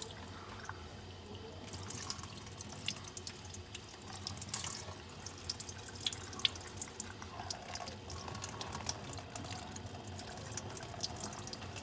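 Kitchen tap running, its stream splashing onto a sheet of paper held over a stainless steel sink. The splashing grows louder about two seconds in.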